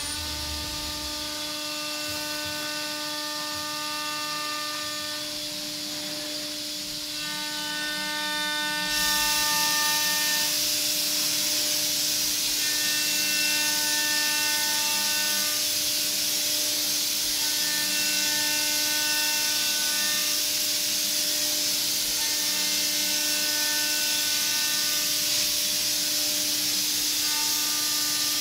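Doosan DVF 6500 five-axis machining centre's spindle turning a half-inch three-flute ball-nose end mill at 18,000 RPM with a steady hum, while the cutter ball-tracks a curved surface in semi-finishing passes. A higher cutting whine comes and goes every few seconds as the tool engages the part. A hiss gets louder about nine seconds in.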